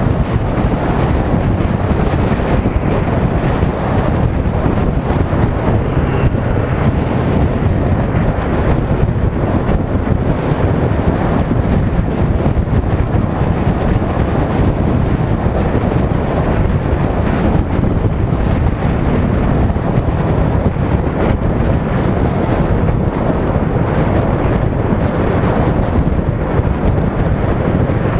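Steady wind rushing over a motorcycle-mounted camera's microphone while riding at road speed.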